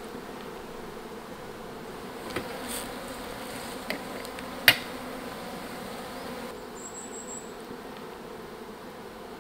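Honeybees humming steadily around their hives, with a few light clicks and one sharp click about halfway through.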